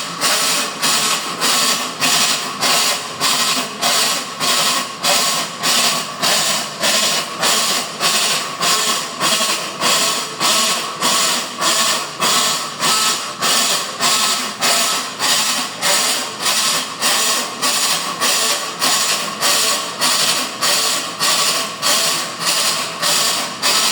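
Consul washing machine running with a loud, regular ratcheting clatter, about one and a half strokes a second, over a steady hum: an abnormal mechanical noise from the machine.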